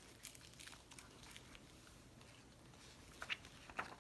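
Near silence: room tone with a few faint short clicks or rustles, the clearest just after the start and twice near the end.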